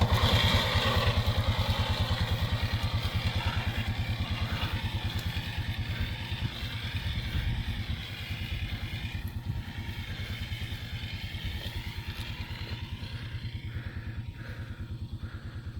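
A small engine running steadily with an even, rapid putter, gradually getting quieter.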